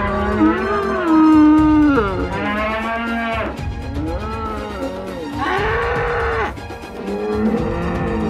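Bull-like bellows: about five long moos one after another, each bending up and down in pitch, over background music.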